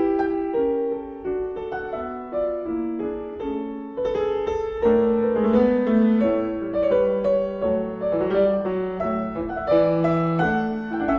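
Background music: a piano melody of separate notes, fuller and louder from about four seconds in.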